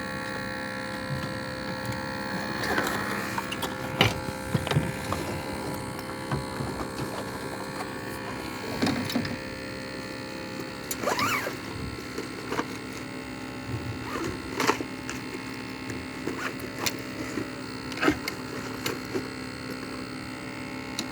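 A steady mechanical hum throughout, with scattered clicks and knocks and a few faint voices now and then.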